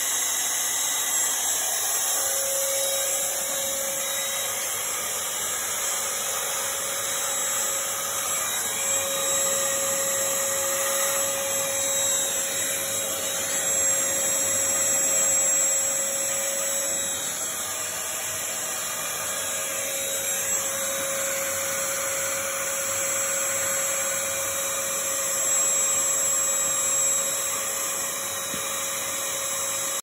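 Vacuum cleaner running steadily, its crevice tool sucking up live bed bugs and their shed skins along a wall and baseboard, with a thin whistle that comes and goes.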